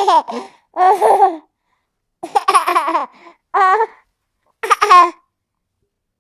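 A baby laughing in about five short, high-pitched bouts of giggling, each under a second long, with silent gaps between them.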